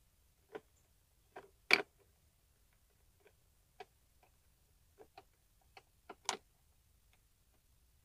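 Scattered sharp clicks and taps of a screwdriver against the plastic taillight lens and its screws, about nine in all, the loudest a little under two seconds in and another a little after six seconds.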